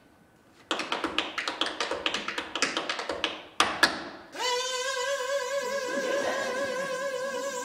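Tap shoes striking in a quick run of taps for nearly three seconds, ending in two louder stamps; then a long sung note with vibrato is held for about three seconds.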